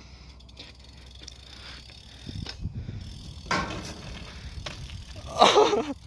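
BMX bike riding on concrete: tyre rumble and rattle of the bike. There is a sharp noisy burst about three and a half seconds in, and a brief loud pitched sound near the end.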